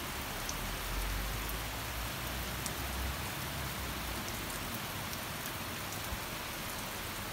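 Steady downpour of rainy-season tropical rain, an even hiss of rain falling.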